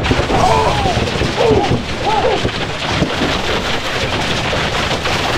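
Aerosol deodorant cans being smashed and burst open in a giant blender: a loud, dense, continuous crashing noise. Excited shouts come over it in the first couple of seconds.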